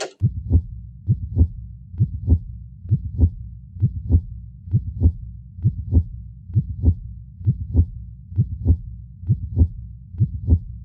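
Slow heartbeat sound effect from the Haunted Mansion: paired low 'lub-dub' thumps, about a dozen beats a little under a second apart, over a steady low rumble.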